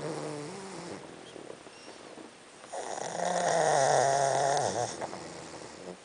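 Sleeping pug snoring: a short snore at the start, then a longer, louder snore from about three to five seconds in.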